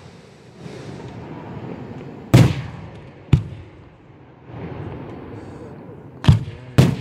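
Aerial firework shells bursting with sharp bangs: one about two and a half seconds in, another a second later, and two close together near the end.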